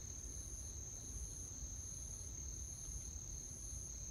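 Insects trilling in the pond-side vegetation: one continuous high trill, and a higher one pulsing on and off about once a second, over a faint low rumble.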